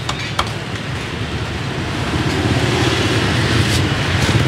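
Street motor traffic running past, a steady engine drone that grows a little louder in the second half, with a sharp knock about half a second in.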